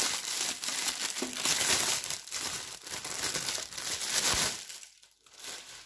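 Clear plastic wrap crinkling and rustling as it is pulled off a small plastic box by hand, dying down about four and a half seconds in.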